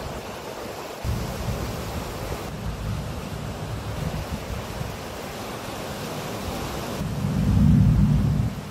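Thunder rumbling, starting about a second in and swelling loudest near the end, over a steady hiss of wind and surf.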